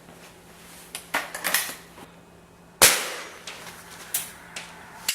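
A single sharp shot from a pellet air rifle firing a BB, nearly three seconds in. Light clicks and brief rustling from handling the rifle come before it, and a few lighter clicks follow.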